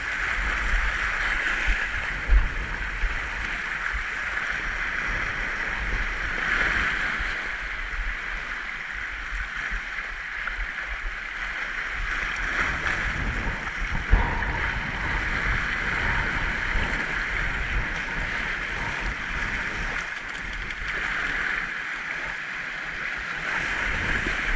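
Sea waves washing and breaking over a rocky shoreline: a steady hiss that swells and eases every several seconds, with wind rumbling on the microphone. A couple of short knocks, about two seconds in and again near the middle.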